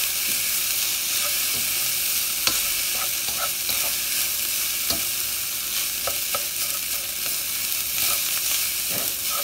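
Garlic fried rice sizzling in a wok over medium-high heat as a spatula stirs and tosses it. Scattered scrapes and taps of the spatula against the pan sound over the steady sizzle.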